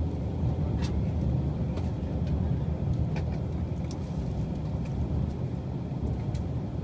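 Steady low rumble of a moving limited express electric train, heard from inside the passenger car, with a few faint clicks from the wheels and track.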